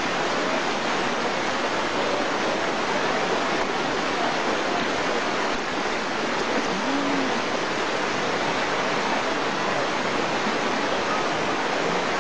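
Floodwater rushing steadily, a loud unbroken torrent.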